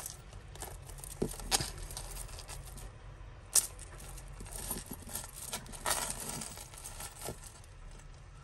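Light clinks and clicks of a fine silver necklace chain being worked loose by hand from tangled links, with one sharper click about three and a half seconds in.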